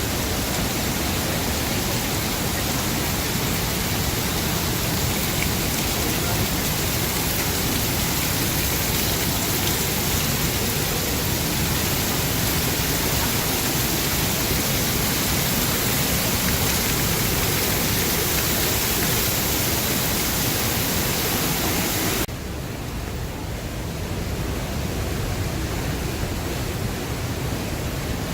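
Steady rush of falling water from a waterfall. About 22 seconds in it suddenly drops to a quieter, thinner rush.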